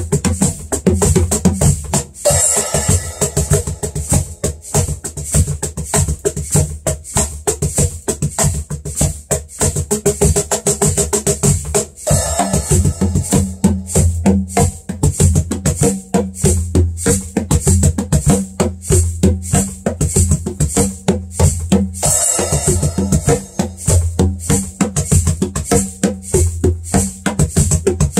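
Ashiko cajon and regular cajon played by hand in a fast, steady groove: deep bass thumps mixed with crisp, woody slaps, with a brighter, fuller passage about every ten seconds.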